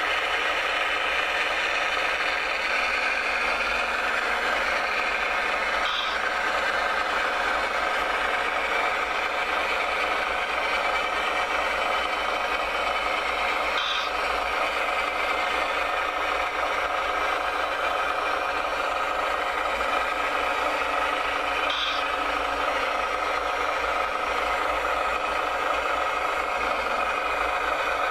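Radio-controlled construction model's motors and gearing running steadily with a whir and light rattle, with a short high chirp about every eight seconds.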